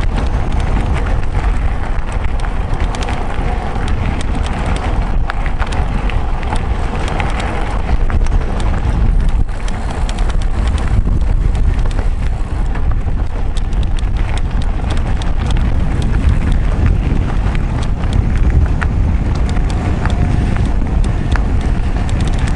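Mountain bike riding over a rough track, heard from a camera on the bike. Wind buffets the microphone in a steady low rumble, with a dense, irregular clatter of tyres and bike parts rattling over stones.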